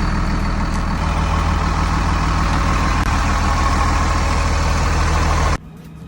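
Motorhome engine idling steadily, running now that the faulty transmission shift selector that kept it from starting has been replaced; it cuts off suddenly near the end.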